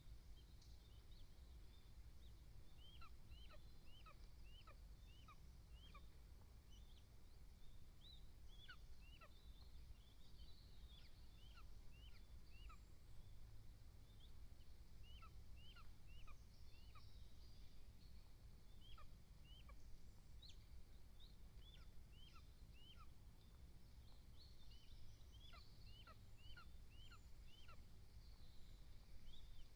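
A bird calling, over a low steady rumble: runs of four to six short, high notes, each sliding downward, repeated again and again.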